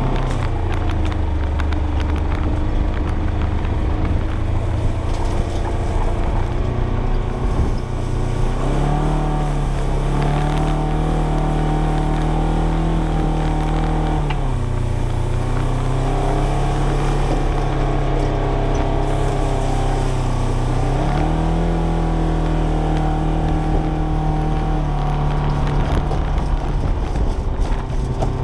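Polaris Ranger XP 1000 side-by-side's twin-cylinder engine running under load in low gear, towing a steel drag over wet clay, heard from inside the cab. The revs rise about nine seconds in, ease off around fourteen seconds, and rise again a little after twenty seconds.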